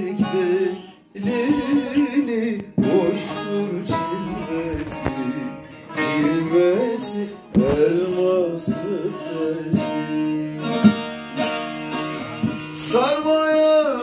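Two bağlamas (long-necked Turkish saz) playing a plucked instrumental interlude of a Turkish folk song, with quick ornamented notes and pitch bends. A man's singing voice comes back in near the end.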